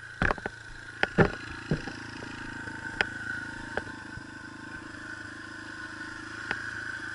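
Small four-stroke dirt bike engine, a Yamaha TT-R125, running steadily at low speed without revving. Several sharp knocks and clatters come over it in the first few seconds, the loudest about a second in.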